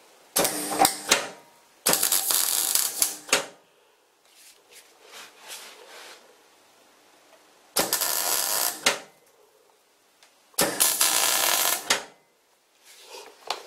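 MIG wire-feed welder arc crackling as it tack-welds the corner joint of square steel tubing, in four bursts of about a second or so each with pauses between. The tube carries a rust-proofing coating that makes it spatter heavily.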